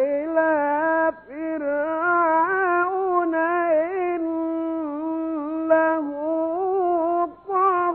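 A male Egyptian Quran reciter chanting in the melodic tajweed style, holding long, ornamented high notes. There is a short break for breath about a second in and another near the end.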